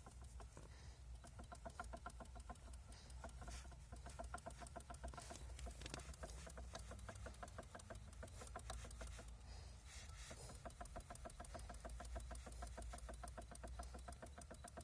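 Lada Kalina's MONDO electric power steering unit rattling: a rapid run of faint ticks that stops and starts, over a steady low hum. The owner calls it a knock from the power steering.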